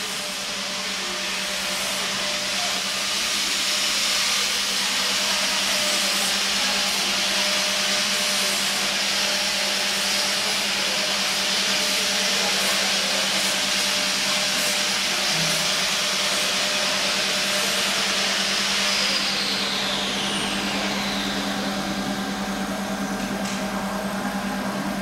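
Vibratory bowl feeder running at high speed: a steady hum under a dense, hissing rattle of hundreds of small metal rivets chattering in the aluminium bowl and along its feed track. The rattle eases a little near the end.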